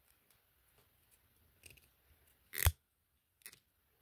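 Quiet handling noise from fingers working a crocheted yarn piece: a few soft clicks and rustles, with one louder sharp knock about two and a half seconds in.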